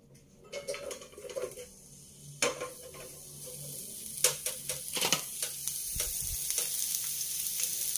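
Thinly sliced onion going into hot oil in a small frying pan: sizzling that grows steadily louder, with a few sharp clicks and a low knock.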